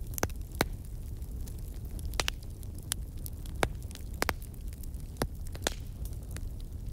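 Wood fire of split logs burning under an iron griddle: irregular sharp crackles and pops, about a dozen, over a steady low rumble.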